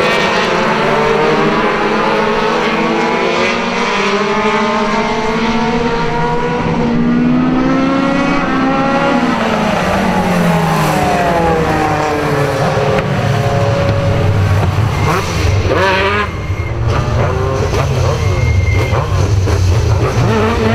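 Several National Hotrod race car engines revving as the cars pass close by one after another, their pitch rising and falling, with one clear drop in pitch as a car goes past about a third of the way through. A couple of short high squeals come late on.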